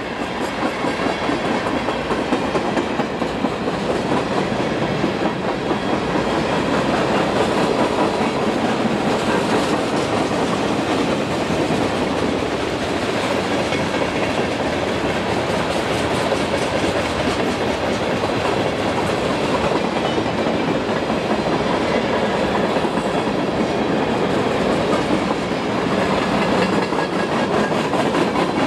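Freight cars rolling past: steel wheels clattering on the rails over a steady rumble, with no letup.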